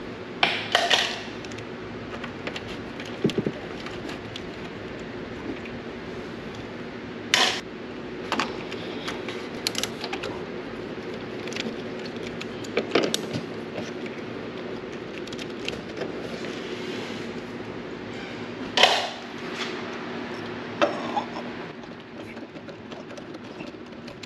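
Hand tools at work on wheel-well liner fasteners: scattered metallic clicks and clinks from a Torx screwdriver, a ratchet and small bolts, every few seconds, over a steady low hum.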